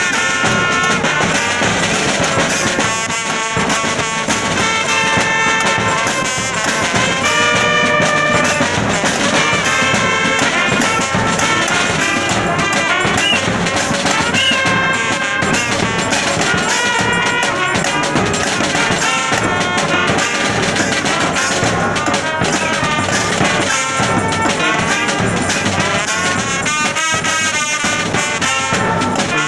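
Brass band playing a tune: trumpets and other brass horns carry the melody over snare drums and a bass drum.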